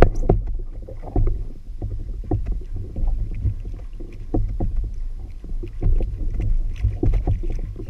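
Low wind rumble on the microphone, with irregular clicks and knocks of a conventional fishing reel being cranked hard to wind a hooked fish up from about 400 feet.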